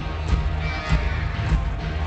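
Live rock band playing: distorted electric guitars over drums, with a heavy beat landing about every 0.6 seconds, with no singing.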